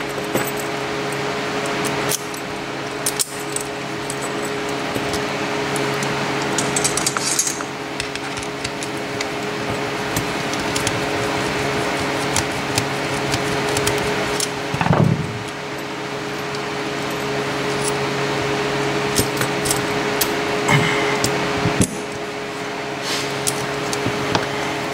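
Lock picks working the pin stack of a Chubb five-pin padlock: scattered small metallic clicks and scrapes, over a steady hum.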